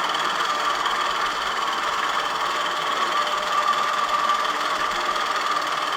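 Longarm quilting machine stitching a pattern: a steady machine hum that swells and eases slightly as the head moves.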